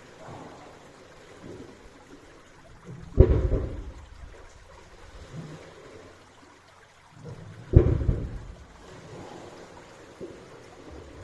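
Waves at high tide hitting a drainage pipe, each one making a sudden deep boom that dies away over about a second. Two booms come about four and a half seconds apart, with softer low rumbles between them.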